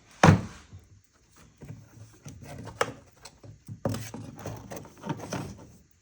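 Hands moving engine parts out of the way: a sharp knock just after the start, then irregular clicks, knocks and rustling of parts and tools being handled.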